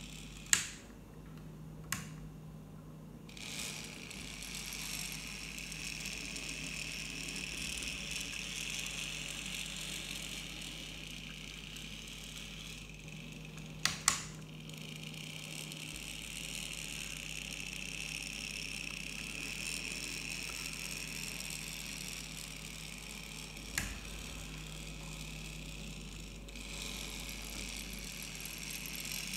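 N gauge model diesel locomotive and wagons running on track out of view: a steady hum and whirr of the small motor and wheels on rail, growing louder near the end as the train comes back into view. A few sharp clicks stand out over it.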